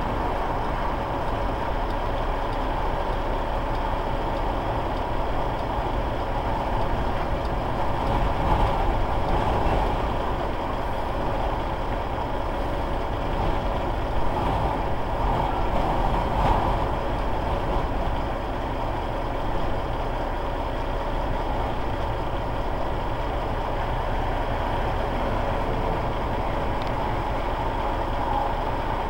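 Violent wind buffeting a truck, heard from inside the cab: a steady rushing rumble that swells with stronger gusts about a third of the way in and again around the middle.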